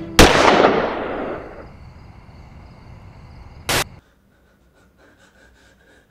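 A single loud gunshot with a long echoing decay, then about three and a half seconds later a short sharp crack, after which the sound cuts off abruptly.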